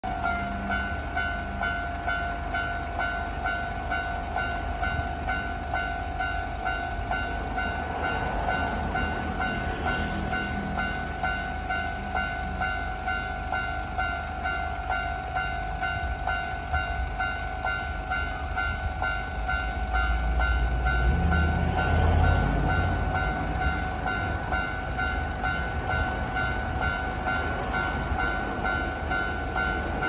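Japanese railway level-crossing warning bell ringing its rapid, even, electronic 'kan-kan' over and over while the crossing is closed for an approaching train. A low rumble swells about twenty seconds in and then fades.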